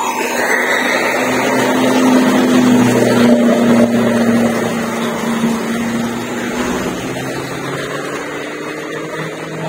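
Road traffic: a passing motor vehicle's engine hum swells to its loudest about three seconds in, then slowly fades, its pitch sinking a little as it goes.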